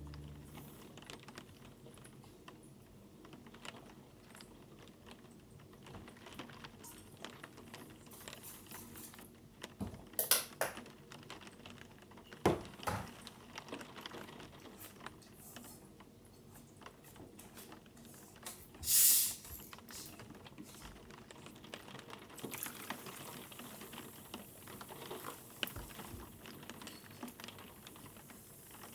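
Soft kitchen handling sounds: many small clicks and taps of utensils and dishes, with a few louder knocks and one brief loud hiss about two-thirds of the way through.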